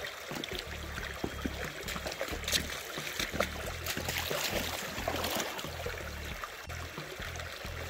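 Creek water running and splashing, with many small clicks and knocks and a low, uneven rumble that comes and goes.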